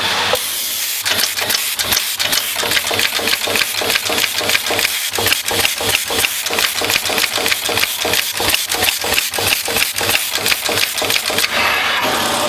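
Eyelet pin insertion machine running, its insertion heads clattering as they set eyelets into a printed circuit board: a fast, even run of sharp clicks, about four a second, starting about a second in and stopping near the end.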